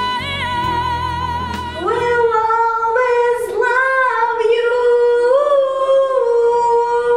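A woman singing into a microphone over a backing track. For the first two seconds the accompaniment carries steady chords and a low beat, then her voice comes in with long held notes that waver in pitch.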